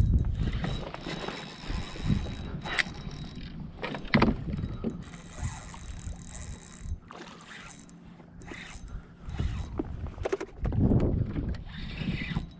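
Fishing reel cranked and its drag working in irregular bursts of mechanical whirring and clicking while a big redfish is fought on rod and line.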